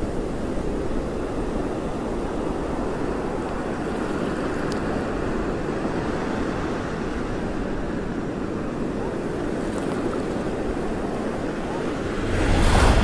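Sea waves washing steadily on a sandy shore, with wind on the microphone. A louder rush of noise comes in about a second before the end.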